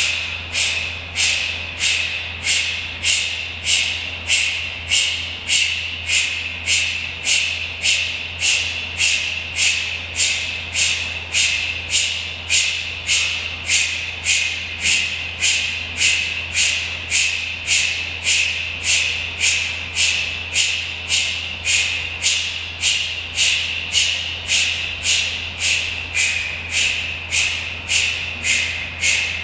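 Kapalabhati breathing: a person pushing out sharp, forced exhales driven by the core, about one and a half a second in an even rhythm, each inhale following passively and unheard.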